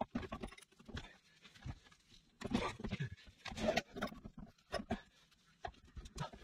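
Handling noise from an E-locker differential carrier with its crown wheel as it is lifted and turned on a galvanised bucket: irregular metal clicks, knocks and scrapes, busiest about halfway through.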